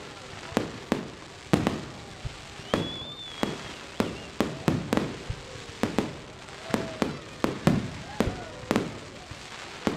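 Fireworks display: a rapid, irregular string of aerial shell bangs, about two a second, each with a short echo. A brief high whistle comes about three seconds in.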